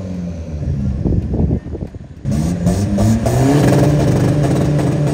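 Lifted Kia 4x4's diesel engine revving under load as it climbs a sandy off-road track. The engine note drops back with some clatter about a second in, then pulls hard again from about two seconds in.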